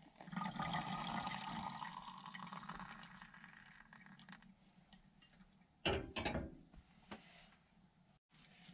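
Hot water poured from a stovetop kettle into an AeroPress coffee maker: a steady pouring, filling sound that fades away over about four seconds. About six seconds in, a few sharp metallic knocks as the kettle is set back down on the gas hob's grate.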